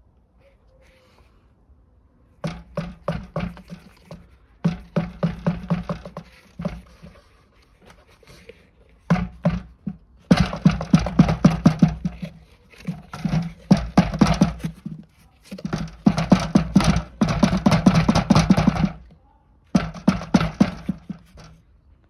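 Pleated vacuum cartridge filter clogged with drywall dust, knocked rapidly against the inside of a bucket to shake the dust out, in half a dozen bouts of quick knocks with short pauses between them.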